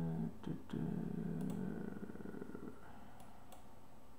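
A man's thoughtful closed-mouth hum ('hmm'), in two stretches over the first few seconds, then a few faint clicks.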